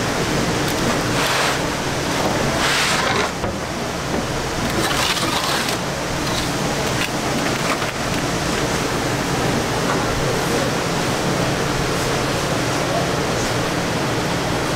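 Steady kitchen background noise: a constant roar with a low hum under it, and a few short hisses in the first five seconds or so.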